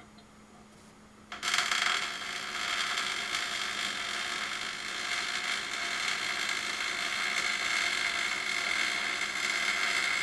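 Arc welding on steel: the welding arc strikes abruptly about a second and a half in, then runs with a steady crackling hiss as the weld bead is laid.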